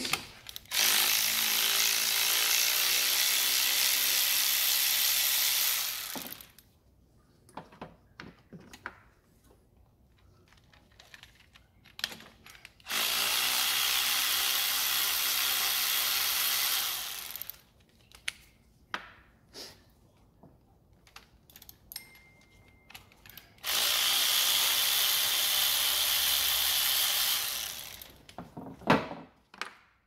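Power ratchet running in three bursts of about four to five seconds each, undoing the water pump's bolts. Between the bursts there are light clicks and knocks of the tool and bolts being handled.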